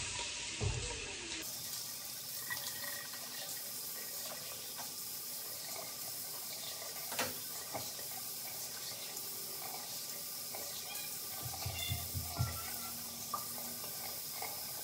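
Bathroom sink tap running steadily while Noxzema cleansing cream is rinsed off the face.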